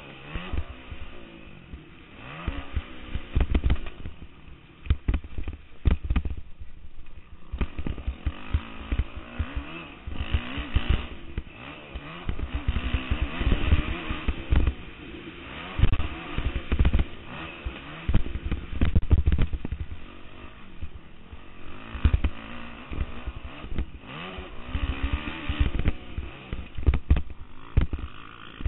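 Dirt bike engine revving up and down as the rider works the throttle around a motocross track, heard through a helmet-mounted camera, with frequent low thumps. The engine note drops away briefly about six seconds in, then comes back on the throttle.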